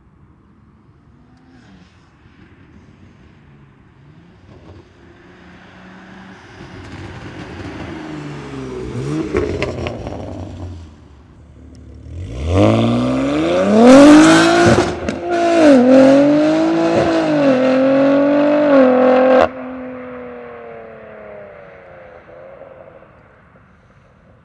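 BMW S58 twin-turbo inline-six breathing through a titanium equal-length X-pipe catback exhaust with catless downpipes, building gently at first and then accelerating hard with its note climbing in pitch, with a brief dip partway through like a gear change. The loud run cuts off abruptly and the exhaust note falls away.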